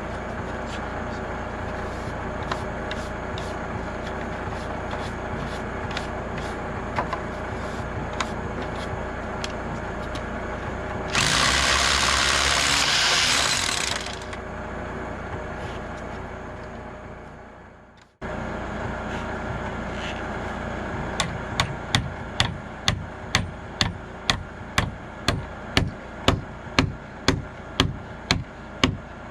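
SDS hammer drill boring into a concrete slab in one loud burst of about three seconds, partway in, over a steady low engine hum. Near the end come regular sharp knocks, about one and a half a second.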